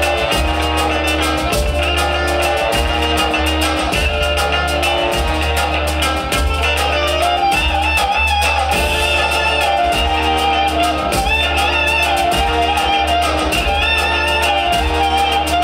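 Music with a steady beat and a melodic line over a continuous bass.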